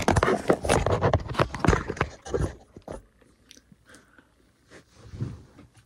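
Close handling noise: rustling, clicks and knocks as the camera is handled and set down on a table, dense in the first three seconds, then a few quieter bumps and rustles.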